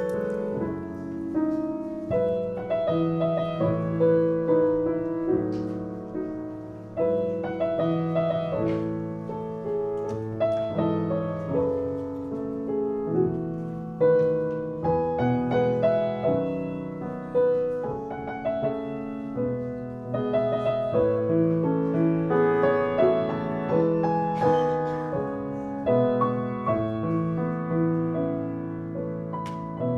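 Piano playing a slow instrumental prelude, steady notes and chords.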